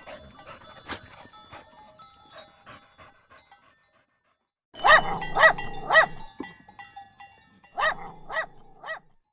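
Dog barking: three short, sharp barks about five seconds in, then three more near the end. Faint panting comes before the barks.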